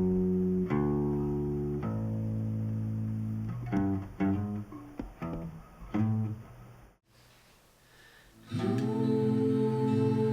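Guitar played by plucking single notes and chords that ring and die away. About seven seconds in it cuts off abruptly into a short near silence, and then sustained, held chords of music come in.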